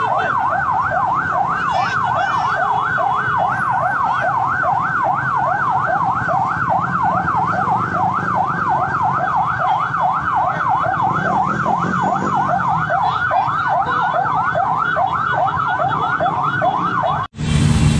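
Electronic siren in a rapid yelp, sweeping up and down a few times a second, over the low running of a passing convoy of motorcycles. It cuts off suddenly near the end.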